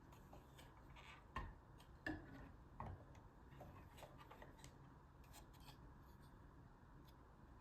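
LEGO plastic bricks clicking and snapping together, soft scattered clicks with three sharper snaps a little over a second in, at about two seconds and near three seconds.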